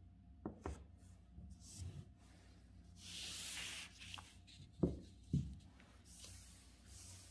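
Thin calligraphy paper being slid across the table by hand: a soft rustling swish lasting about a second near the middle and another near the end. A few dull knocks come between, two light ones early and two louder ones about five seconds in.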